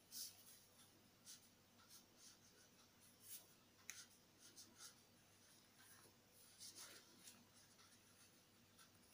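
Felt-tip pen scratching and squeaking faintly on paper in short separate strokes as words are handwritten.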